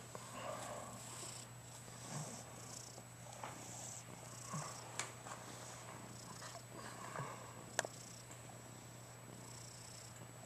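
Domestic cat purring at close range, in soft rhythmic breath cycles, with a couple of sharp clicks in the second half.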